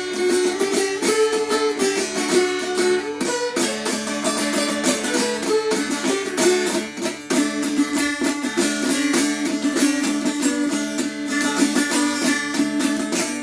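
Appalachian lap dulcimer strummed in quick, even strokes, a tune moving on the melody string over steady drone strings tuned in D. The freshly strung instrument is already drifting a little out of tune.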